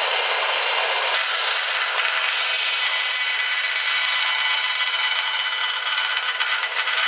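Mastercraft 9-inch benchtop bandsaw running and cutting through a small piece of wood with its factory 6-teeth-per-inch wood blade. It is a steady, loud saw noise that turns brighter and harsher about a second in.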